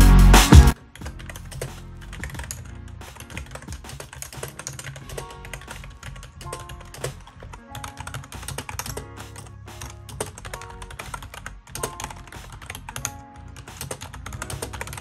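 Fast, continuous typing on a compact pink backlit keyboard, with many irregular key clicks and clacks and soft music underneath. Louder music cuts off about a second in.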